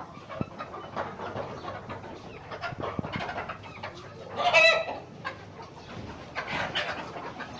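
A flock of chickens clucking, with one louder call about halfway through and small clicks and rustles throughout.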